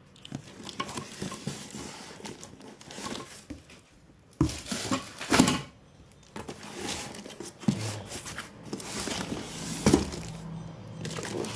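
Cardboard packing pieces being handled and shifted inside a shipping box: rustling and scraping with a few sharp knocks, the loudest about halfway through and again near the end.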